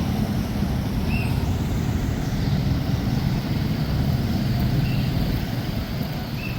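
Street traffic noise: a steady low rumble of passing vehicles, with a few brief high chirps.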